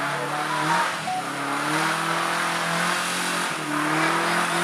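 Off-road 4x4 vehicle engine running under load, its pitch rising and falling with the throttle over a constant noise.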